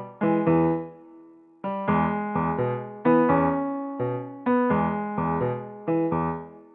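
Background music: an electric piano playing a gentle tune in chords, each struck and left to fade, with a short pause about a second in.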